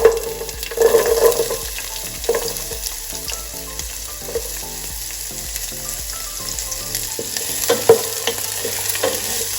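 Cubed onion sizzling as it fries in hot oil with whole spices, stirred in the pot. Steady frying hiss with a few utensil knocks against the pan, the loudest near the end.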